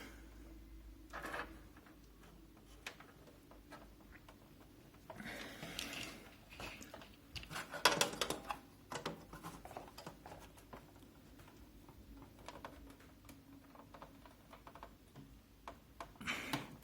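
Scattered plastic clicks, knocks and rubbing as the front panel of a Zalman Z11 Neo computer case is worked at by hand to free its tightly seated retaining clips. A longer stretch of rubbing comes about five to seven seconds in, and the sharpest knock about eight seconds in.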